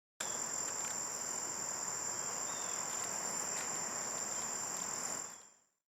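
Insects trilling in one steady, unbroken high-pitched drone over faint outdoor hiss, fading out about five seconds in.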